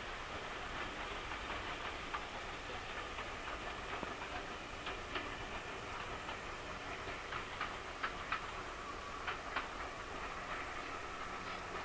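A steam train heard from behind as it runs away along the line: a steady noise from the train with scattered sharp clicks, several of them close together between about seven and ten seconds in.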